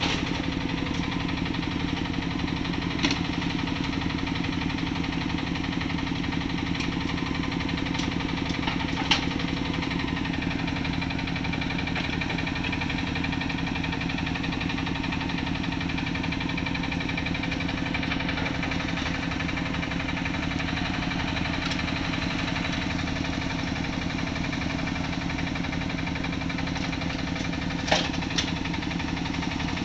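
Small diesel engine of a Yanmar SV08 mini excavator running steadily while it digs and loads soil. A few sharp clanks a few seconds in, around nine seconds, and twice near the end, as the steel bucket knocks against the tracked dumper's steel tray while tipping soil in.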